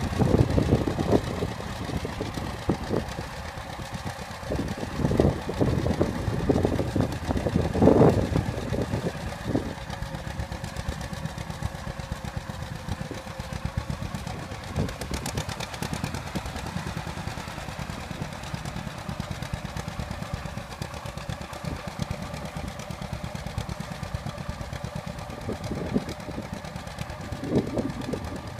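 1942 John Deere Model A tractor's two-cylinder engine running steadily under load as it pulls a disc harrow through the field, its firing pulses coming in a rapid, even beat. It is louder over the first eight seconds or so, then settles to a steadier, quieter run.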